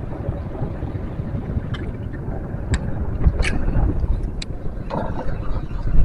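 Strong wind rumbling on the microphone and waves washing against a small boat, with a few short sharp clicks.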